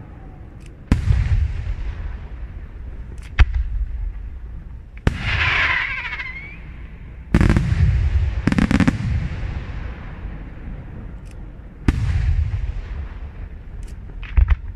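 Aerial firework shells bursting one after another: about seven loud bangs spaced a second or more apart, each trailing off in a low rumble, with fainter pops in between.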